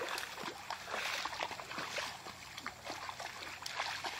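Labrador–coonhound mix wading through a shallow creek, its legs churning the water into many small, irregular splashes over the steady rush of the stream.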